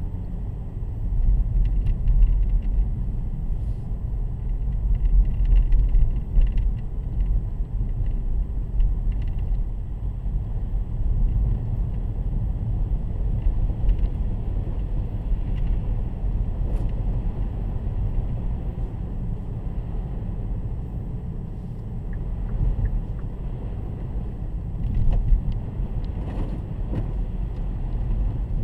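A car driving along: a steady low rumble of tyres on the road and the engine, with a few faint ticks scattered through it.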